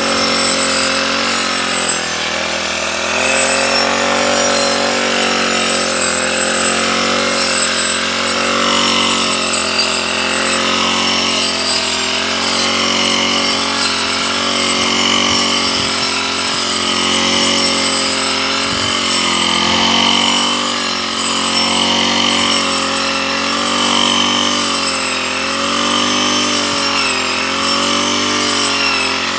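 Petrol brush cutter running steadily while cutting tall grass, its engine note wavering a little as the blade meets the grass.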